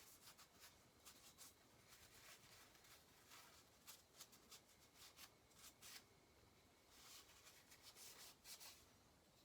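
Faint, irregular scrubbing strokes of a red Scotch-Brite pad rubbing old gasket material off a Pioneer Farmsaw chainsaw's gasket surface.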